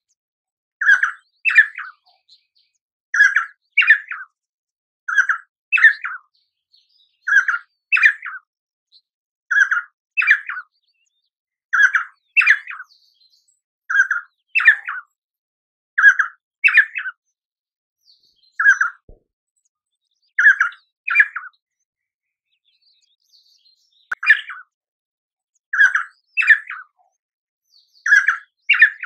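Painted spurfowl calling: a quick pair of short notes, repeated over and over about every two seconds, with one lone note and a short pause in the series about two-thirds of the way through.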